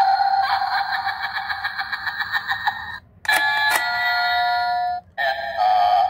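Toystate pumpkin Halloween doorbell toy playing its electronic sound effects through its small speaker: a pulsing synthesized sound for about three seconds, then after a short break a ding-dong chime, and about five seconds in another electronic sound starts.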